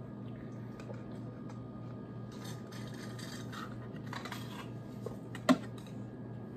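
Soft sucking and slurping through thin straws from small plastic juice barrels, in a few short hissy patches, over a steady low hum. A single sharp click of plastic comes about five and a half seconds in.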